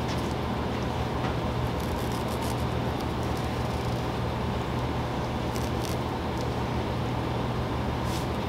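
A steady low background hum, with a few faint short rustles and ticks as headliner fabric is pulled and smoothed around a sunroof opening.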